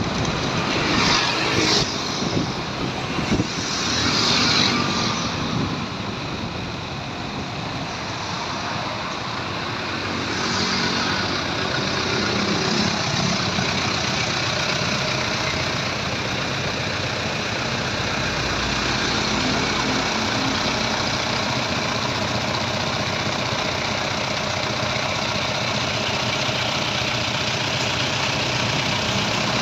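Tow truck engine running and road noise as the truck drives, with a few louder rushes of hiss in the first few seconds, then steady.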